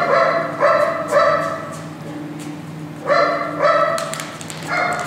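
A dog barking: six short barks, three in quick succession, then two, then one more near the end.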